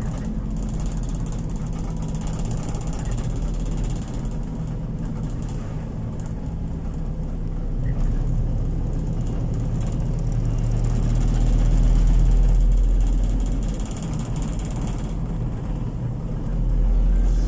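Engine of the moving vehicle carrying the camera, running steadily with a low hum, under road and wind noise. The sound swells louder about twelve seconds in.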